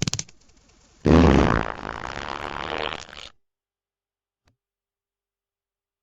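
Fart sound effects: the tail of one fart right at the start, then about a second in a longer one, loudest at its onset and carrying on as a rapid rattling buzz for about two seconds before cutting off suddenly.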